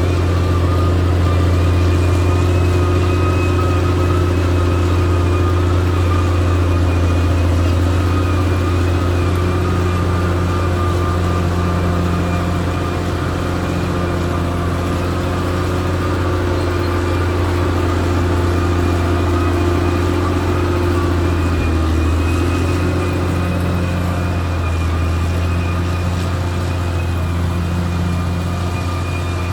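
Caterpillar D6R XL bulldozer's diesel engine running steadily, with a thin high whine over the low engine note.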